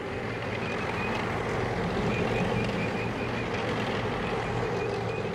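Tracked armoured personnel carriers on the move: a steady engine drone with track noise.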